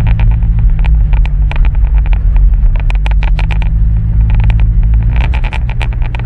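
Pickup truck driving, heard from inside the cab: a steady low rumble of engine and road noise with frequent short clicks and rattles.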